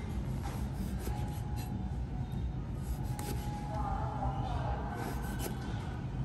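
Chef's knife slicing through raw sea snail meat onto a plastic cutting board: soft repeated cuts and rubbing scrapes over a steady low rumble.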